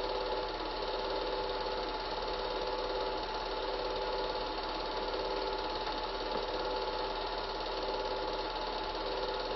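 Cine film projector running: a steady, fast mechanical whirr and chatter with a constant hum.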